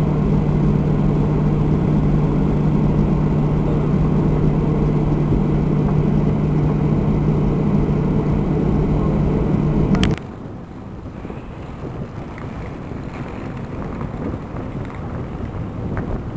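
Loud, steady engine drone with a low hum and a high hiss, cutting off abruptly about ten seconds in. After that there is quieter open-air noise with some wind on the microphone.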